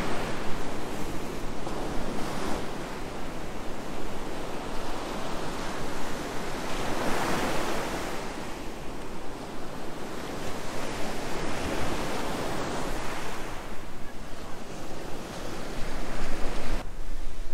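Sea waves breaking on a beach, the surf surging every four to five seconds, with wind rumbling on the microphone, stronger near the end.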